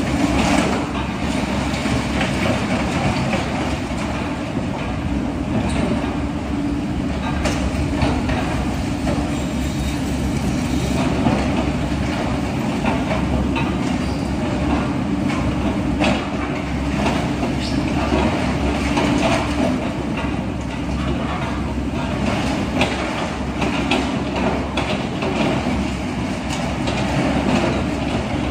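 Caterpillar tracked hydraulic excavator's diesel engine running steadily under load while digging, with frequent clanks and scrapes from the bucket and steel tracks in the dirt.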